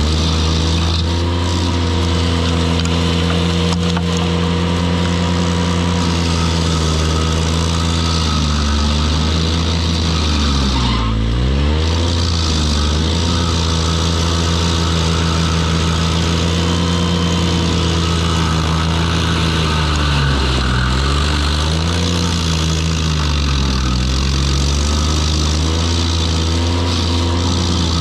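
Ventrac compact tractor engine running hard, driving a KC220 stump grinder. Its pitch sags briefly several times and recovers, the engine loading down as the cutting wheel bites into the stump.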